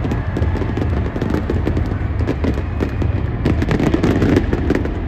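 Stage pyrotechnics going off: a dense run of rapid, irregular crackling pops over a heavy low rumble, loudest about four seconds in.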